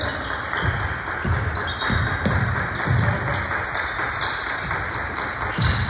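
Basketball bouncing on a gym floor, with irregular low thumps over the steady din of the gym.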